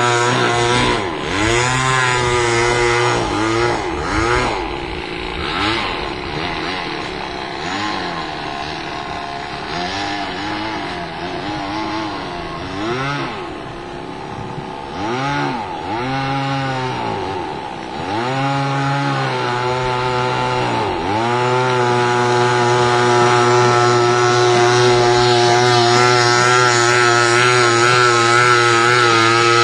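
Two-stroke chainsaw engine driving a home-made radio-controlled speedboat, running continuously. Its pitch dips and climbs back several times, then holds steady and high from about two-thirds of the way through.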